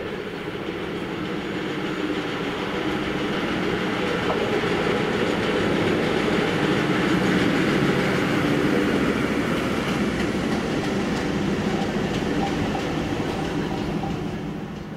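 SU42 diesel locomotive running light, without its train, approaching and passing close by with its engine running steadily. The sound grows louder toward the middle, then fades as the locomotive moves away near the end.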